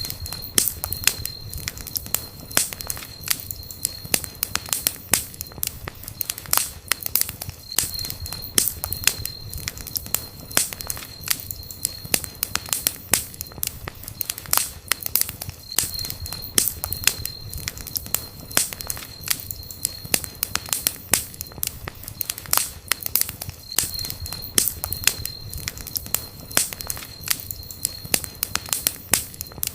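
Campfire burning, wood crackling and popping with dense sharp snaps over a low rumble of the flames. A thin high whistle comes and goes every few seconds.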